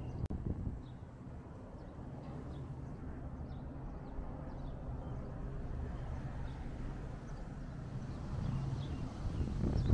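Small birds chirping in short, high calls over a steady low outdoor rumble, with a low rush swelling near the end.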